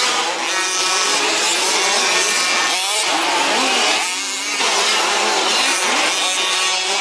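Several 1/5-scale petrol RC off-road trucks with small two-stroke engines revving and buzzing together, their pitches rising and falling as they race round the track. The sound drops briefly a little past four seconds in.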